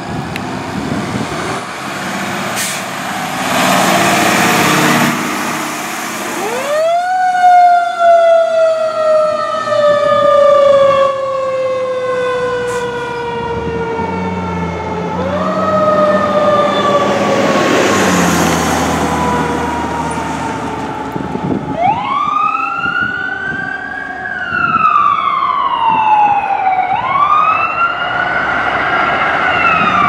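Fire engine's siren, pulling out with its engine running: twice the siren rises quickly and then slowly falls away. Near the end come faster rising-and-falling sweeps from an ambulance siren.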